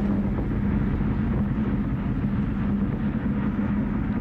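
Atlas V rocket's RD-180 engine running during ascent, a steady low rumble with a constant hum underneath.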